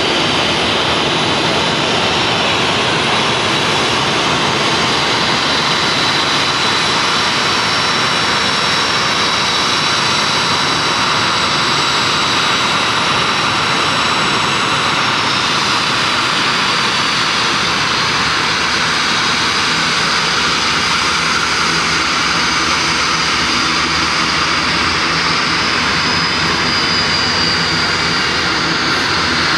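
Boeing 737-400's CFM56 turbofan engines running at taxi power: a steady jet roar with a high, thin whine on top that drifts slightly in pitch.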